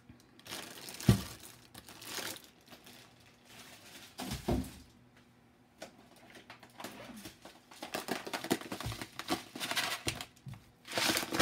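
Plastic grocery packaging crinkling and rustling as it is handled, with a sharp thump about a second in and another knock a few seconds later.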